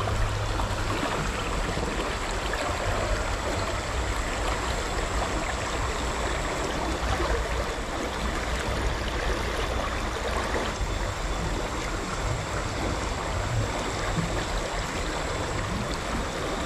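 A shallow rocky river running fast over stones: a steady, unbroken rush of flowing water.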